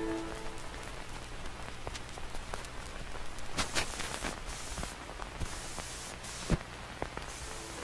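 Crackling static-like noise with scattered clicks and pops while the piano music is dropped out, with a few short bursts of hiss around the middle.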